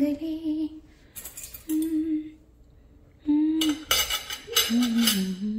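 Metal cutlery clinking against a ceramic dinner plate as a fork and knife are laid down, a short clatter about a second in and a longer, louder one about four to five seconds in. A woman hums short phrases in between.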